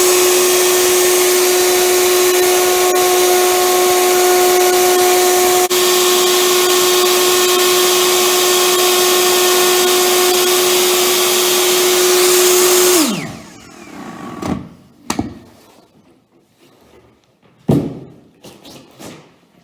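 Electric plunge router running at a steady high speed while routing out the dented section of a solid oak worktop. It is switched off about 13 seconds in and winds down with a falling whine, followed by a few knocks and clicks.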